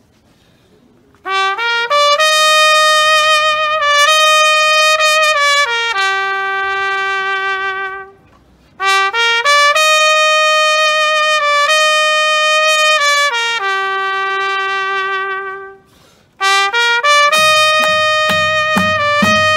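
Trumpet playing a slow melody of long held notes in three phrases with short breaks between them. A low, steady drum beat comes in near the end.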